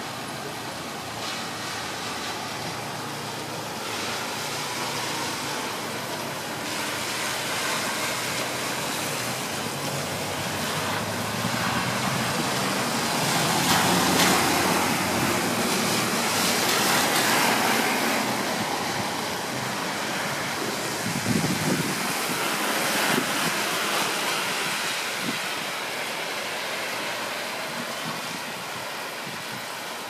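Steady rushing noise of wind and road traffic, swelling for several seconds in the middle, with a few short knocks later on.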